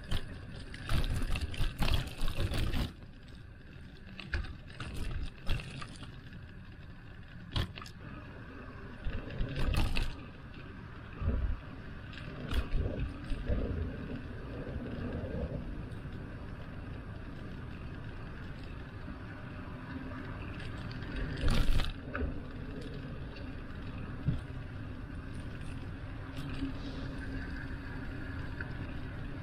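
Riding noise from a moving bicycle: a steady low rumble of wind and road on the microphone, broken by a few louder noisy bursts, about a second in, near ten seconds and about twenty-two seconds in.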